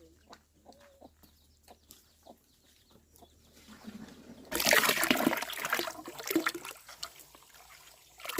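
Chickens cluck faintly. About four and a half seconds in, water is suddenly poured and splashes loudly for a couple of seconds, then goes on more weakly in smaller splashes. It is bath water poured over a child from a scoop or basin.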